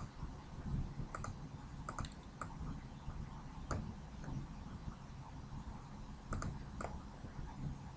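Scattered sharp computer mouse clicks, several in quick pairs, over a faint low hum.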